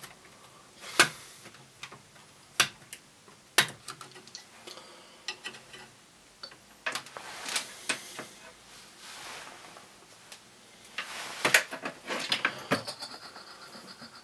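Scattered clicks and knocks of hard objects being handled, coming irregularly. The loudest is a sharp click about a second in, and there is a cluster of them around eleven to twelve seconds in.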